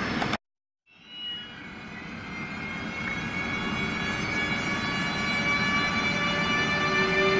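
A brief burst of train running noise cuts off, and after half a second of silence an ÖBB class 1216 Taurus electric locomotive approaches with a passenger train. Its steady electric whine of several held tones grows steadily louder.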